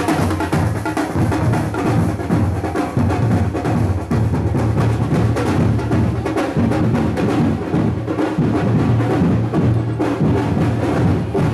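Music driven by drums and percussion, with a steady, busy beat.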